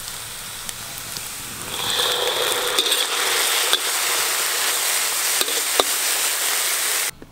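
Stir-frying in a wok: hot oil sizzling steadily, louder from about two seconds in, with a metal spatula scraping and clicking against the pan a few times. The sizzle cuts off suddenly near the end.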